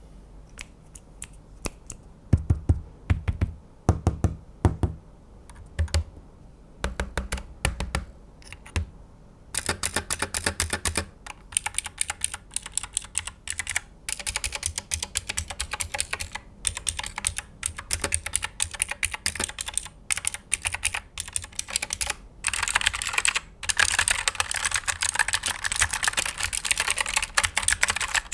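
Typing on a mechanical keyboard for a sound test. Scattered keystrokes over the first nine seconds or so, then fast, continuous typing for the rest.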